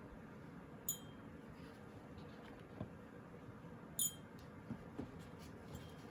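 Quiet handling of small parts on a workbench: two light metallic clinks, about a second in and about four seconds in, with a few soft clicks between.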